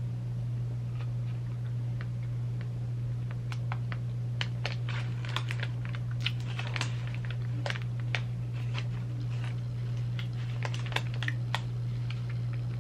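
Chewing and wet mouth clicks from someone eating a frosted cake pop: irregular small clicks scattered throughout. A steady low hum runs underneath.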